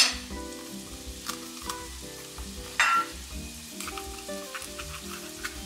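Onions and garlic sizzling in olive oil in a pan, with two short, louder rushes of noise, at the start and about three seconds in, and a few small clicks. Soft background music plays underneath.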